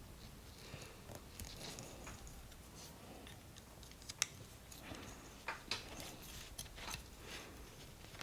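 Small snips and clicks of plastic model kit parts being cut from their runners and handled. There are scattered soft clicks, with a sharp snap about four seconds in and two more about a second and a half later.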